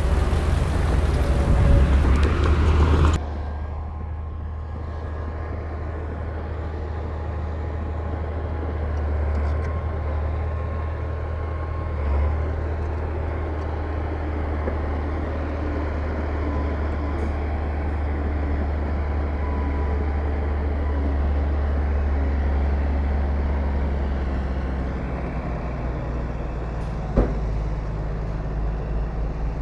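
Heavy diesel engine of earthmoving machinery running steadily with a low hum. About three seconds in, a louder, harsher noise cuts off abruptly and leaves the even engine sound, and one sharp knock sounds near the end.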